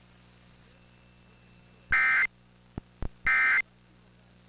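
Emergency Alert System end-of-message data bursts: two identical short, harsh buzzing bursts about 1.3 s apart, the digital code that closes a broadcast warning. A couple of sharp clicks fall between them.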